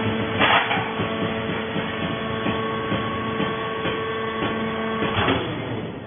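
TCM vertical hydraulic baler running a press cycle on sisal fibre: the hydraulic power unit gives a steady multi-tone whine, with a short rush of noise about half a second in and another about five seconds in, when the steady tone stops.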